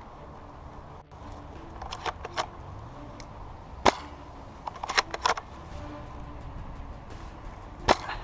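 Two sharp shots from a King Arms Blaser R93 airsoft sniper rifle, about four seconds apart, with shorter clicks and clacks before and between them.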